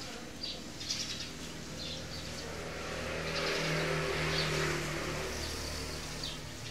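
A motor vehicle passing, its engine hum and road noise swelling to a peak mid-way and fading again. Short high bird chirps repeat through it about once a second.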